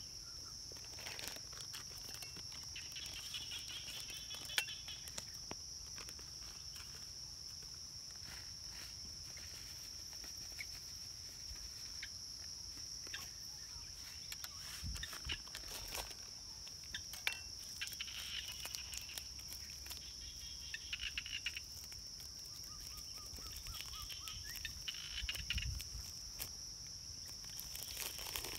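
A steady, high-pitched insect drone runs throughout. Over it come intermittent light rustles and small clicks as a plastic food bag and utensils are handled, the sharpest click about four and a half seconds in.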